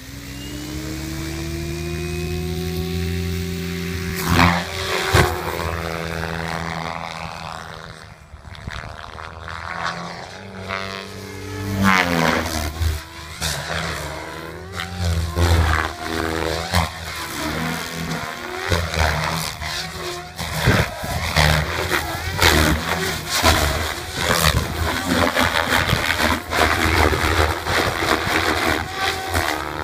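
Electric RC helicopter with a KDE 600XF-530-G3 brushless motor on 12S: the rotor whine rises steadily in pitch as the head spools up. It is followed by aggressive 3D flight, with the main rotor blades chopping in loud rushes and the pitch swinging up and down with each manoeuvre.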